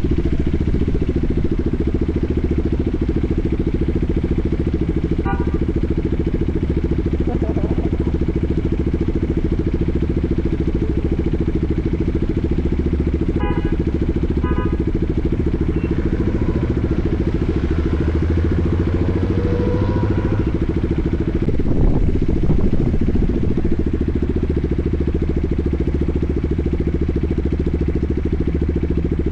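Motorcycle engine idling steadily close to the microphone. A few brief high beeps sound over it at intervals, and there is a short louder rush of noise a little past two-thirds of the way through.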